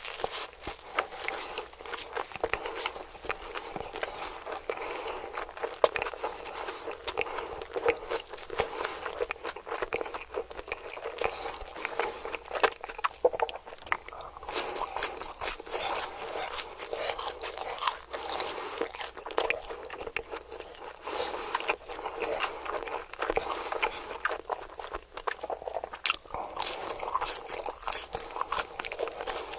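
Close-miked chewing and biting of crispy fried food, a dense run of irregular crunches and crackles.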